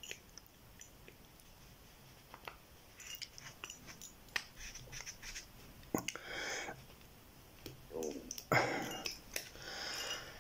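Small metallic clicks, taps and scrapes from handling a Euro lock cylinder and working small metal tools into its face, with a few louder rustling patches in the second half.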